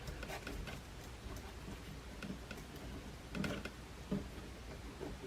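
Faint scattered clicks and light taps of a wire being handled and fed through drilled holes in a model railway baseboard, with two slightly louder knocks a little past the middle.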